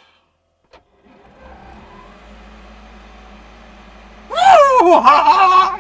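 Zero Breeze 12V portable air conditioner switching on with a click, then running with a steady low hum. Near the end a much louder wavering, pitched sound rises over it for about a second and a half.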